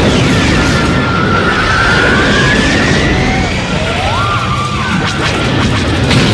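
Action-film soundtrack of a starship chase: music mixed over crashes, booms and engine noise. A whining tone glides upward from about a second in, and another rises and falls near the middle.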